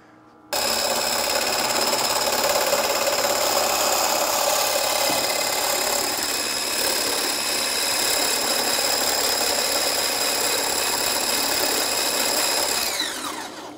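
Cuisinart variable-speed hand blender with a whisk attachment whipping liquid egg whites in a plastic beaker. The motor switches on about half a second in and runs with a steady whine, then is switched off near the end, its pitch falling as it winds down.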